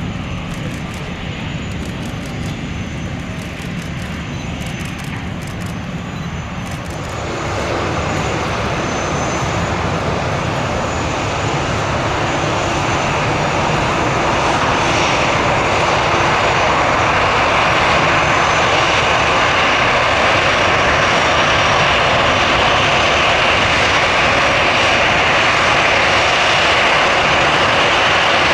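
The four CFM56 turbofan engines of an Airbus A340-300 running as the airliner rolls slowly along the runway after landing. It is a steady, loud jet noise that steps up about seven seconds in and keeps building gently as the plane draws near.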